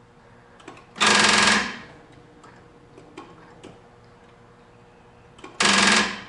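Faint irregular ticking from a Cadillac Northstar V8 engine bay, interrupted twice by a short, loud rush of noise, each lasting under a second.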